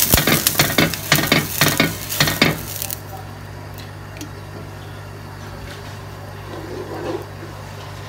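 A halved onion with oil is rubbed back and forth over a hot cast-iron dosa tawa, sizzling and scraping in quick strokes for about two and a half seconds. This greases the griddle so the dosa batter won't stick. After that only a steady low hum remains.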